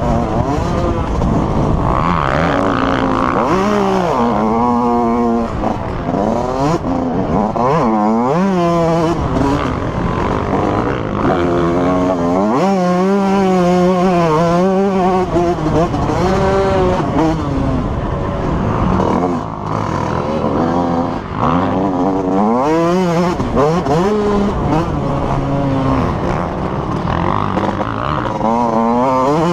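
Motocross dirt bike engine heard from on board, revving up and falling back again and again as the rider accelerates, shifts and rolls off around the track.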